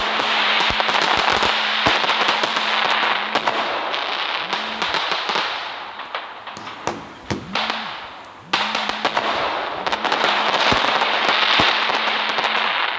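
Firecrackers crackling in a rapid, dense run of sharp pops. The crackle thins out about six seconds in, then bursts back at full strength about two and a half seconds later.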